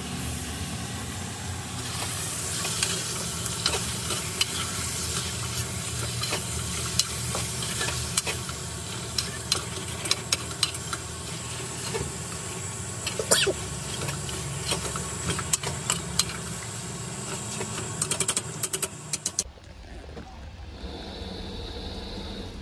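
Chicken curry sizzling in a metal pot while a metal spoon stirs it, with many sharp clinks and scrapes against the pot. About three seconds before the end it cuts to a quieter, steady background.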